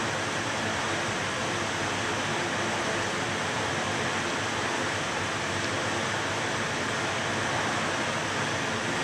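Steady, even hiss of air from a ventilation fan, unchanging throughout, with no knocks or clicks standing out.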